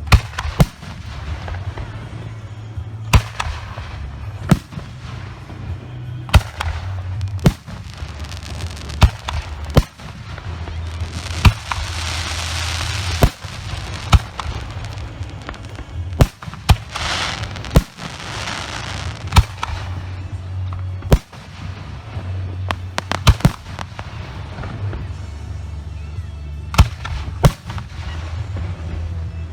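Professional aerial firework shells bursting one after another: about twenty sharp bangs, often a second or two apart, with two hissing stretches of a couple of seconds each, one about twelve seconds in and one about seventeen seconds in. A steady low hum runs underneath.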